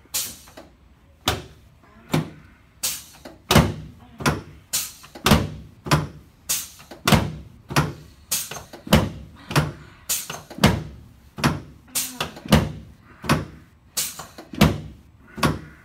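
A regular series of sharp thumps, about three every two seconds and all about equally loud, during chiropractic work on a patient lying face down on a treatment table.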